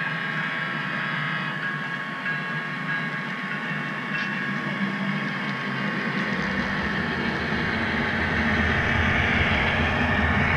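HO scale model intermodal train led by Union Pacific diesel locomotives running toward and past, a steady rolling rumble that grows louder from about six seconds in as the locomotives near.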